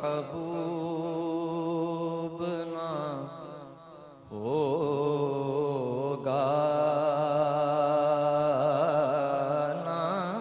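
A young man reciting a naat solo, singing long, wavering held notes with a short pause for breath about four seconds in, over a steady low drone.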